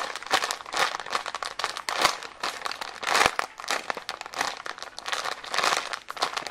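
Hands squeezing and handling a soft, slow-rising jumbo foam squishy toy, giving repeated crinkling, rustling squeezes.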